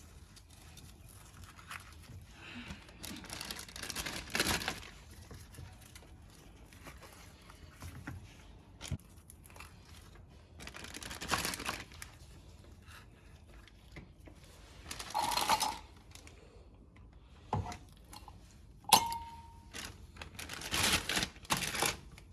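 Plastic zip bag being handled, crinkling and rustling in short bursts every few seconds, with a short clink toward the end.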